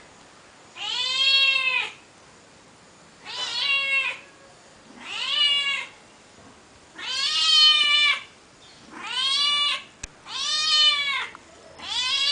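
Domestic cat meowing over and over: seven long meows of about a second each, each rising then falling in pitch, spaced about a second and a half apart, the last still going at the end.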